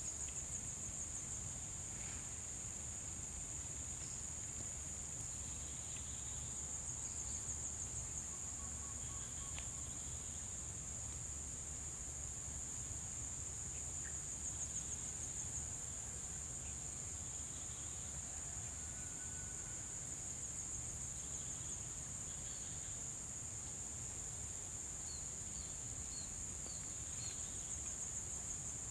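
Insects trilling in a steady, unbroken high-pitched chorus, with a few faint short chirps near the end.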